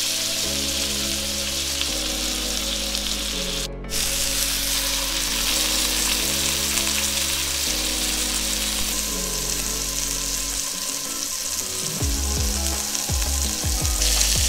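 Venison backstrap sizzling in hot oil in a frying pan as it is seared on its edges, with a steady hiss that cuts out for a moment a little under four seconds in. Background music with held chords runs underneath, picking up a beat near the end.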